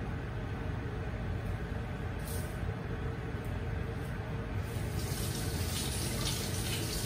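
Pot of fish simmering in vinegar under a glass lid on a gas burner: bubbling and hissing over the flame's steady low rush, the hiss growing louder from about five seconds in.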